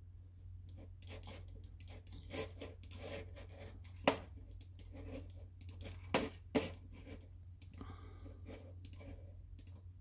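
Scattered soft clicks and taps from working a laptop's pointer buttons, with a few sharper clicks about four seconds and six seconds in, over a low steady hum.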